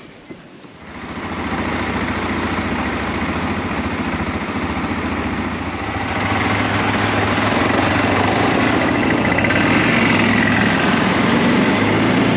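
CFMOTO ATV engine running steadily, coming in about a second in and getting louder around six seconds in.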